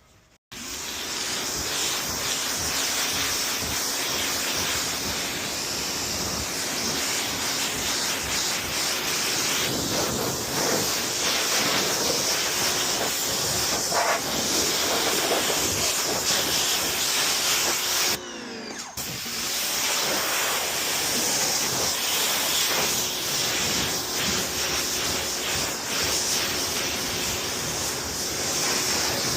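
Pressure washer spray gun rinsing a car, a steady hiss of the high-pressure water jet on the bodywork. It starts about half a second in and cuts out briefly about two-thirds of the way through before resuming.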